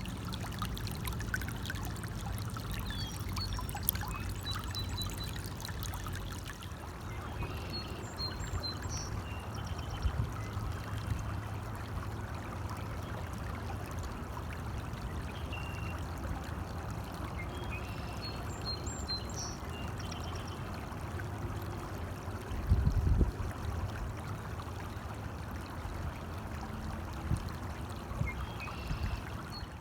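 Small stream trickling and splashing steadily, with a bird chirping briefly twice high above the water sound. A brief low thump about two-thirds of the way through is the loudest moment.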